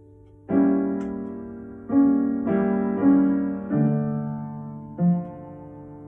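Piano improvisation: six chords struck one after another, each ringing out and fading before the next.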